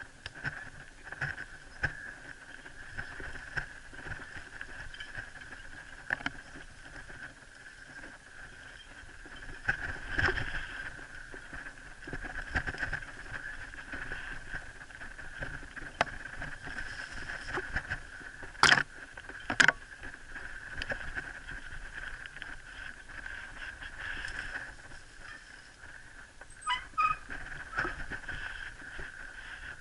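Mountain bike ridden along a dirt singletrack through brush: an uneven rattle and rustle of the bike and vegetation over a steady high-pitched drone, with two sharp knocks about two-thirds of the way through.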